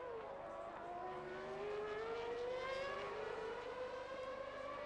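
Formula One car engine running, its pitch rising slowly over about two seconds and then holding steady.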